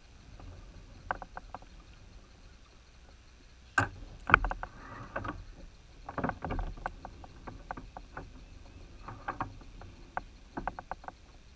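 Knocks and clicks of gear being handled on a fishing kayak, coming in scattered clusters, with the loudest two knocks about four seconds in.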